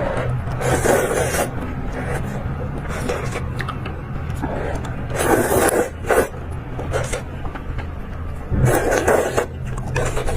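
Close-miked eating sounds, with three louder noisy bursts about a second long, over a steady low hum.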